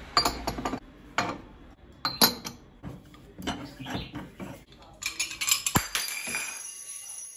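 A coffee cup breaking: a string of sharp clinks and clatters as the cup and its shards hit and scatter, with a high tinkling of pieces about five seconds in.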